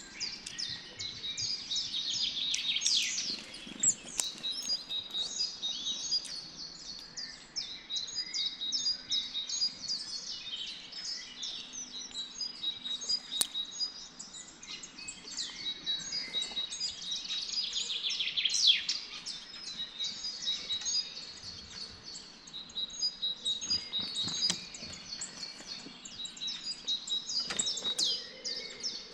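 A dense spring chorus of several songbirds singing and chirping, overlapping, with louder falling trills about three seconds in and again past the middle. A few short clicks sound near the end.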